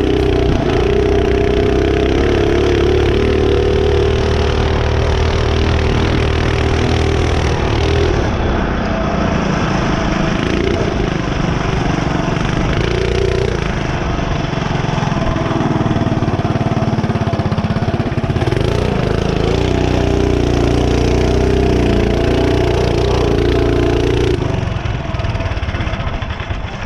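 Mini bike's small single-cylinder engine running steadily under throttle. Its pitch drops about eight seconds in, wavers, steadies again, and the engine eases off near the end.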